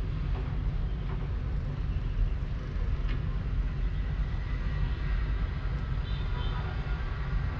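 Steady low rumble of distant city traffic, with a few faint high tones a little after six seconds in.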